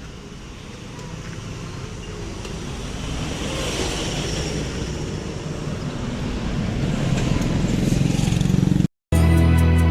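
Road vehicle noise that grows steadily louder over about nine seconds, like a vehicle accelerating or drawing near. It cuts off abruptly near the end, and background music begins.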